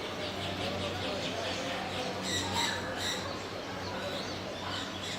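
Caged birds chirping in a quick run, then a few sharp squawks about two seconds in, over a background murmur of voices.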